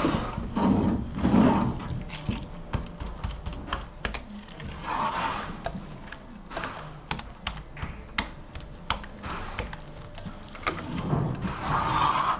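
Laminating roller worked back and forth over resin-wet glass fibre mat: a run of irregular light clicks and rattles from the roller, with louder scrubbing passes about five seconds in and again near the end.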